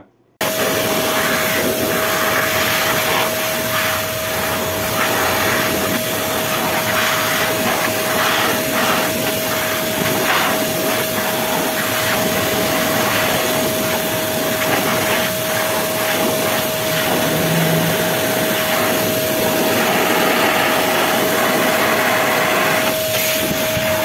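Truper ASP-06 23-litre wet/dry shop vacuum running as a blower, its hose on the rear exhaust port, blowing air through its cloth filter to clean it. A steady motor whine with rushing air that flutters unevenly. It switches on just after the start and shuts off near the end.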